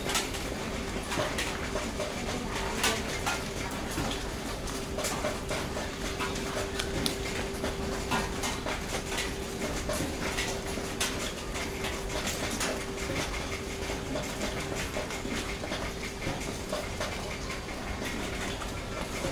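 A litter of puppies about 18 days old suckling from their mother dog: many small irregular wet clicks and smacks as they nurse, over a faint steady hum.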